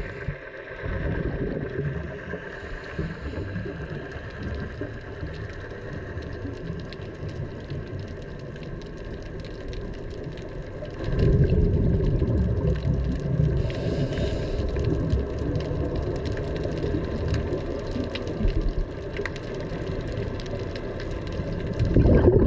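Boat engine running over water noise; it gets louder about eleven seconds in.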